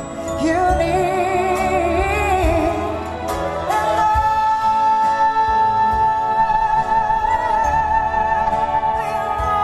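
Female vocalist singing live with a string orchestra: a few wavering sung phrases, then from about four seconds in one long high note held with vibrato over the sustained strings.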